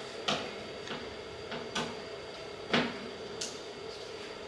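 Screwdriver clicking and tapping against the screws and metal parts of a TV's circuit board as screws are turned: a handful of short, separate clicks, the loudest near the end, over a faint steady hum.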